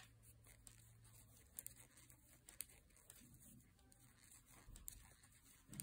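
Near silence, with a few faint, scattered clicks of metal knitting needles as stitches are purled.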